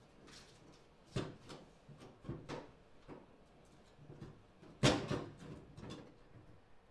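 A plastic trim pry tool levering a plastic tailgate handle bezel off the tailgate: a string of sharp clicks and scrapes, the loudest snap about five seconds in as the bezel pulls loose from its tape and clip.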